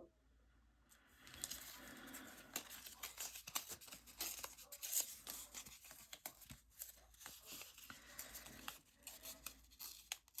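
Faint rustling and crackling of paper being handled, starting about a second in.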